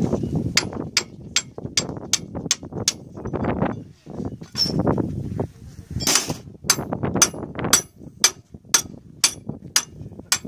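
Sharp, ringing metal-on-metal taps from hand tools working on a stripped-down diesel engine, about two or three a second, in two runs with a pause of a few seconds between them.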